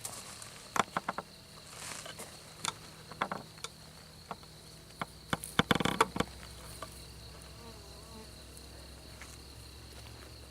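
Sharp clicks and scrapes of a metal hive tool prying the cork plug out of a wooden queen cage: a quick cluster about a second in, a few more around three seconds, and the loudest run at five to six seconds. Under it a steady high insect drone.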